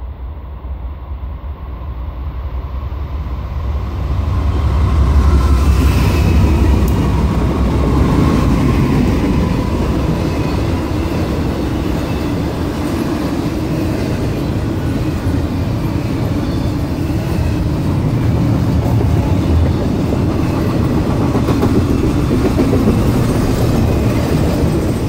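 Norfolk Southern intermodal freight train passing close by. The diesel locomotives' rumble builds and peaks about five seconds in. Then a long string of trailer and container cars rolls past with steady wheel and rail noise.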